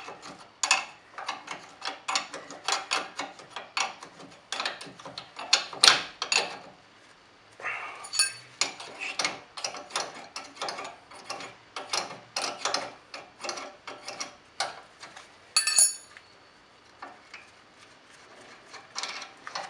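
Spanner clicking and scraping on the nut and hex key as a front stabilizer link nut is unscrewed in short turns, a quick run of small metal clinks that thins out near the end.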